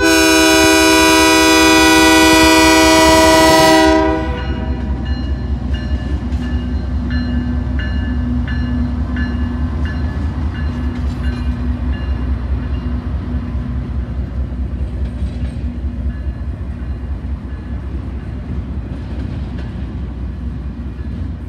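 Lead locomotive CP 8054, a GE AC44CWM, sounds one long horn blast of about four seconds that cuts off sharply. Then the eastbound double-stack intermodal train rumbles past, its wheels clacking over the rail joints.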